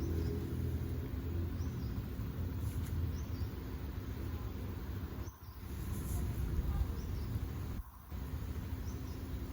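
Outdoor background noise: a steady low rumble that drops out briefly twice, with a few faint short high chirps.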